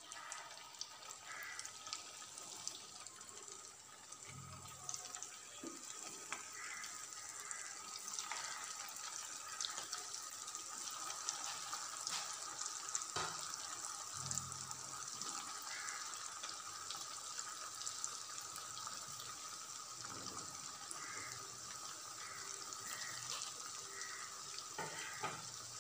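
Potato rings deep-frying in hot oil in a pan: a steady sizzle with fine crackling from the bubbling oil, with a few soft thumps.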